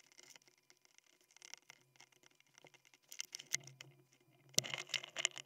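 Light clicks and faint scraping of small metal lock pins and springs being moved about in a plastic parts tray by hand with a slim tool. The clicks are scattered, with a denser run about three seconds in and again near the end.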